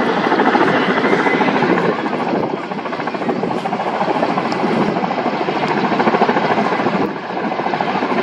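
Kamov coaxial-rotor helicopter hovering low over the sea while it draws water up through a hanging hose: a loud, steady rush of rotor chop and turbine noise mixed with the hiss of whipped-up spray, dipping slightly twice.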